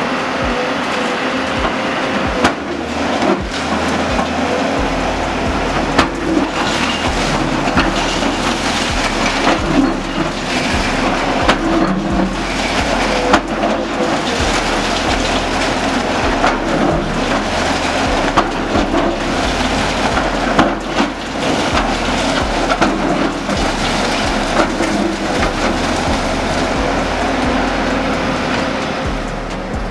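Tata Hitachi hydraulic excavator running while its bucket smashes and tears through a concrete roof, with broken concrete and debris crashing and clattering down. A steady engine hum runs under repeated sharp cracks, the loudest about halfway through.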